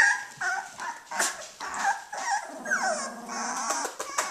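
18-day-old Australian Shepherd puppies whimpering and yipping: many short, high calls that slide up and down in pitch. About three seconds in comes a lower, longer call that lasts about a second.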